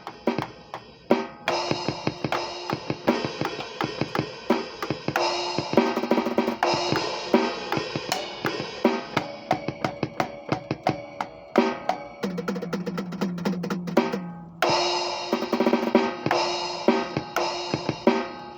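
Drum kit played freely: kick, snare and crashing cymbals, with a fast roll on a low tom about two-thirds of the way through before the cymbals come back in.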